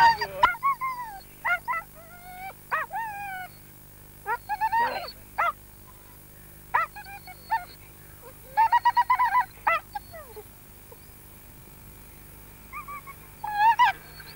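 Dog whining and yelping in short, high calls that slide down in pitch, coming in bouts every second or two, with a quick run of yips about nine seconds in. It is the sound of a dog held back by its collar, eager to join the chase.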